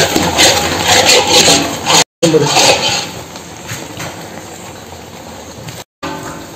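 Metal ladle stirring and scraping thick wheat halwa around a large iron kadai in repeated strokes, then a quieter stretch of steady background noise from about three seconds in.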